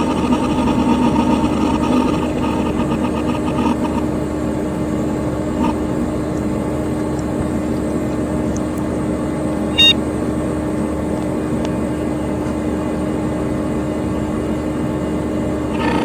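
Dell Dimension XPS P100c desktop computer's cooling fan running with a steady hum, the hard drive working audibly for the first four seconds and then falling quiet. One short sharp click about ten seconds in.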